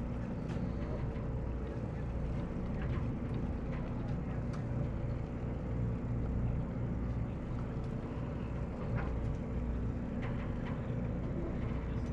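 Steady low hum and rumble of a fishing party boat's engine running while the boat drifts, with a few faint ticks over it.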